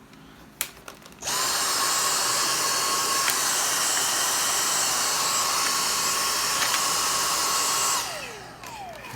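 A small high-speed electric motor switches on about a second in and runs steadily with a high whine for about seven seconds, then winds down with a falling whine.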